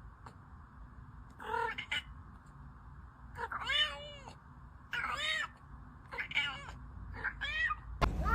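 Domestic cat meowing repeatedly: about five short meows, each rising and falling in pitch, then a louder, longer meow starting near the end.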